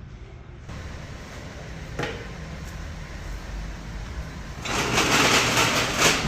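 A motor running steadily with a low rumble. About three-quarters of the way in, a much louder harsh rattling noise joins it.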